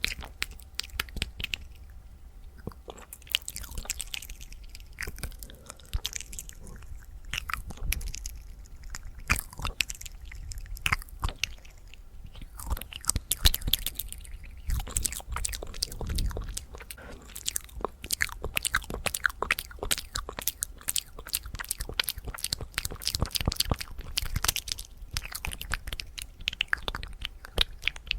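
Fast ASMR mouth sounds: a rapid, unbroken stream of wet clicks, pops and tongue smacks.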